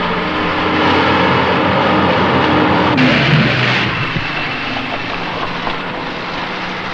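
A Saviem JL 29 garbage truck's engine running as the truck drives off, a steady engine note. About three seconds in the sound changes abruptly to a rougher, noisier engine sound.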